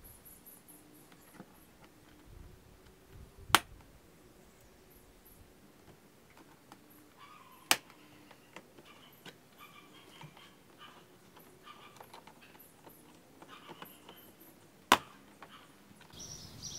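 Three sharp plastic snaps, several seconds apart, as plastic push clips and a rear aero splash guard are pressed into place under a car's rear bumper.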